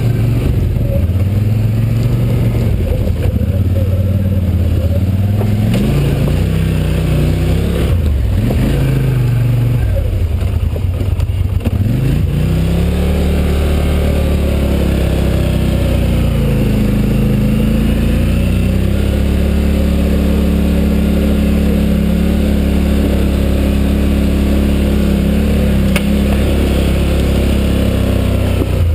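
Quad bike (ATV) engine pulling hard up a steep dirt hill climb, revs rising and falling repeatedly for the first dozen seconds as the rider works the throttle, then holding a steadier pitch for the rest of the climb.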